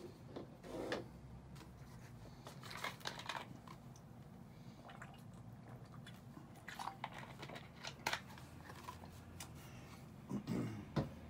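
Faint rustling and light clicks from small items being handled, scattered irregularly over a quiet room hum.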